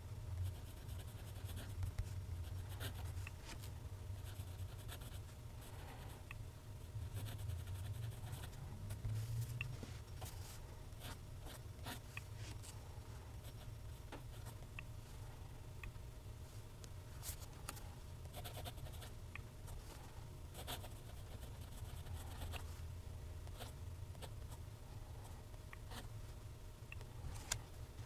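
TWSBI ECO fountain pen's steel nib scratching faintly across Clairefontaine paper as it writes cursive, in many short irregular strokes and ticks, over a steady low room rumble.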